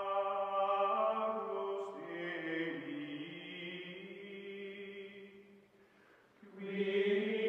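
Choral chanting in the closing music: long held notes sung together, fading away about six seconds in and swelling back a moment later.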